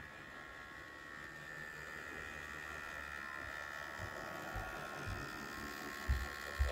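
HO-scale Athearn Genesis MP15AC model diesel locomotive running, its electric motor and gears giving a steady whining hum that grows louder as it approaches. The running is a little noisy, which the owner thinks could need lubrication or break-in. A few low thumps come near the end.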